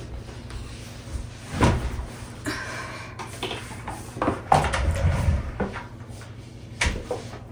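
Kitchen handling sounds: three sharp knocks and bumps of things being set down and a cupboard door being worked, with some rustling between the first two.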